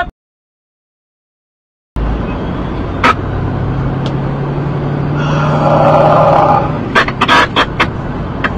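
Nearly two seconds of dead silence, then the inside-cab sound of a semi-truck rolling slowly: a steady engine hum with a single click, and a quick run of sharp clicks near the end.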